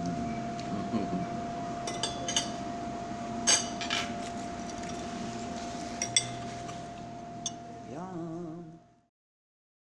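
Metal fork clinking and scraping against a ceramic plate, with about seven sharp clinks, over a steady background hum with a constant tone. The sound cuts off abruptly about nine seconds in.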